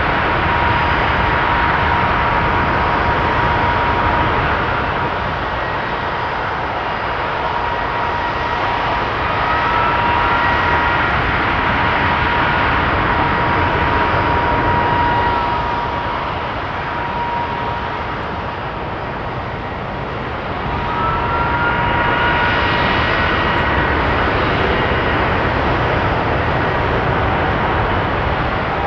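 Boeing 757-200 freighter's jet engines running at high power during a ground engine test: a steady roar with a high whine. The power eases off in the middle, then spools back up with a rising whine a little over twenty seconds in.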